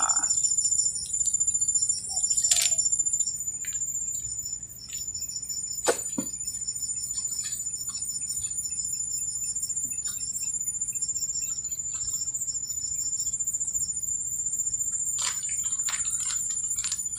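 Insects chirring in a steady, high-pitched drone with a fast even pulse. A sharp click about six seconds in, and short rustles near the end.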